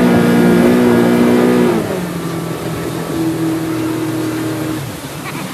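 An engine running steadily, then dropping in pitch and easing off about two seconds in.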